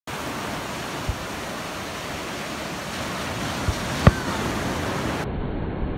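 Fireworks going off as short dull thumps, one about a second in and two close together near four seconds, the second the loudest, over a steady rushing hiss that turns duller near the end.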